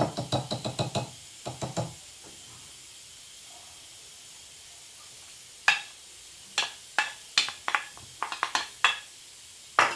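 A wire whisk clicks quickly against a ceramic bowl as it beats cake batter for about the first second, with a few more strokes just after. After a pause of a few seconds, a wooden spoon knocks and scrapes against a plate, pushing grated apple into the batter in a series of sharp, uneven taps.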